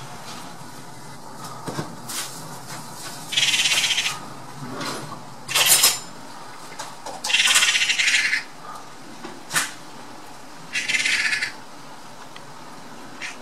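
Eurasian magpies chattering: four bursts of harsh, rapid rattling, each about half a second to over a second long, with a few single short notes between. This is the magpie's alarm chatter, given here at a sparrowhawk on its kill.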